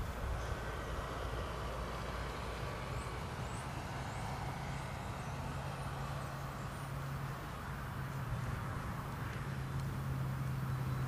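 A motor engine running steadily, heard as a low, even hum, over outdoor background noise with a few faint bird chirps.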